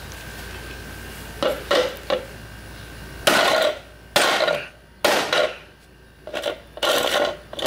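Hard plastic parts of a portable jacuzzi pump being handled and scraped against a concrete floor: a series of short scrapes and knocks starting about a second and a half in.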